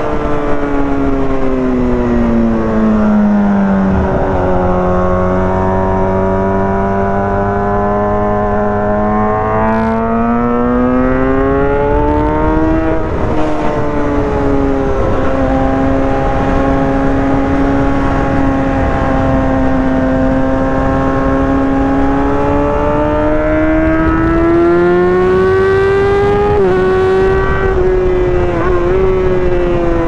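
A 2023 Kawasaki ZX-6R's 636 cc inline-four engine running while the bike is ridden. Its pitch drops, holds, climbs again and eases off several times as the throttle and speed change, over a steady rushing noise.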